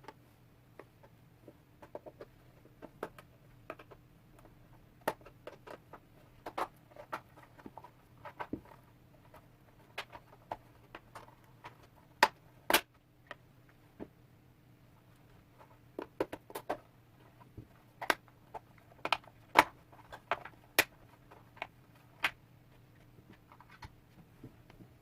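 Irregular clicks and taps of lamp parts being handled and pried apart during LED lamp disassembly, with the sharpest knocks about halfway through and a busier run of clicks a little later, over a faint steady hum.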